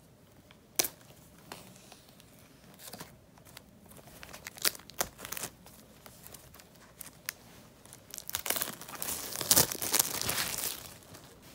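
The wrapping of an Apple Pencil box being torn off and crinkled by hand. A few sharp clicks and short rustles come first. About eight seconds in comes a longer, louder spell of crinkling and tearing.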